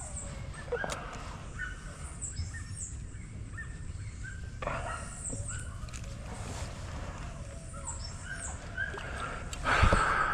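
Birds calling outdoors: many short chirps and quick down-sweeping calls, over a low steady rumble. A louder burst of noise comes near the end.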